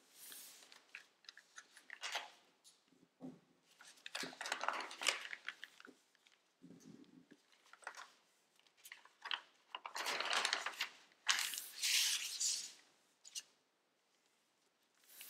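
A sheet of origami paper rustling and crinkling in irregular bursts as it is creased, folded and spread flat again. The loudest bursts come about two-thirds of the way through.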